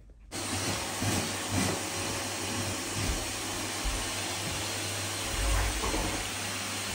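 Canister vacuum cleaner running steadily while its nozzle is worked over a carpet. The noise cuts in suddenly a moment after the start.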